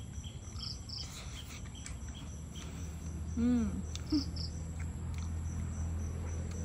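Insects trilling steadily at a high pitch, with a short hummed "mmm" from a woman chewing durian about three and a half seconds in.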